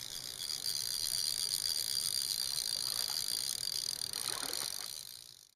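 Steady high-pitched insect chorus, a dense shrill trilling that fades out near the end.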